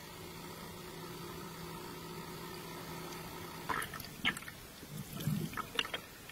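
Underwater sound: a steady motor hum of several pitches, which fades about halfway through. Irregular wet clicks, crackles and gurgles of water and bubbles follow.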